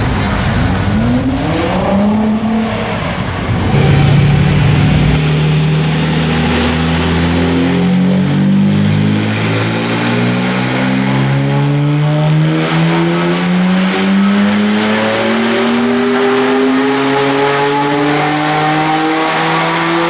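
For the first few seconds a car engine revs on a street. Then a Nissan Skyline GT-R (R32) twin-turbo straight-six runs a pull on a chassis dynamometer, its pitch climbing slowly and steadily for about sixteen seconds.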